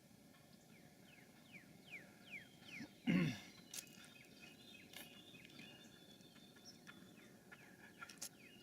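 Wild birds calling: a run of short, high, falling whistled calls, then one louder, lower falling call about three seconds in, with a few sharp clicks afterwards.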